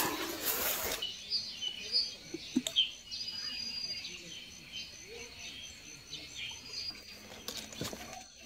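Small birds chirping over a steady, pulsing insect trill. A burst of rustling noise comes in the first second.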